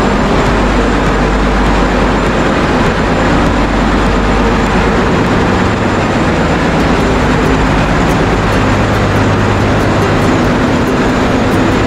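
Loud, steady drone of diesel machinery running in a ship's engine room, with a few steady low hums under an even roar.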